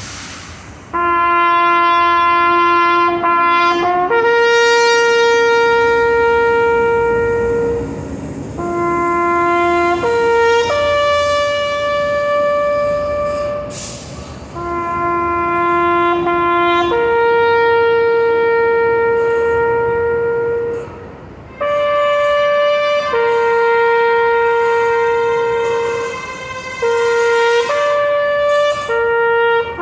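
Bugle call played slowly in long, held notes on three pitches, stepping up and down between them with short breaths in between. It is the ceremonial call sounded while the national flag is lowered.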